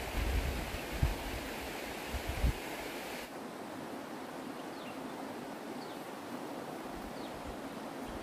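Outdoor wind noise: a steady hiss, with gusts buffeting the microphone for the first couple of seconds, then a sudden change in the hiss about three seconds in, and a few faint high chirps.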